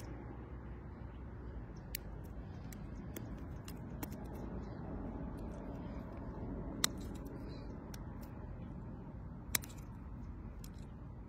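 A few sharp, small clicks and snips from hands cutting and working a plastic drinking straw at close range, the loudest two about two-thirds of the way in and near the end, over a steady low rumble.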